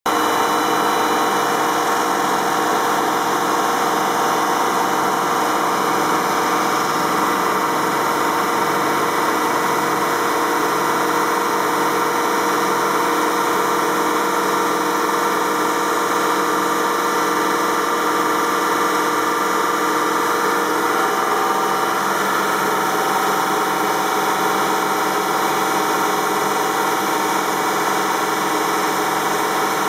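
Grimonprez semi-automatic bridge saw cutting a stone block with its water-cooled circular blade: a steady, loud machine drone of motor and blade with water spray, holding several tones that shift slightly about two-thirds of the way through.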